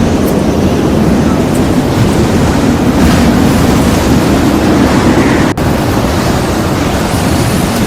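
Loud, steady roar of typhoon wind and surging water, with a brief break about five and a half seconds in.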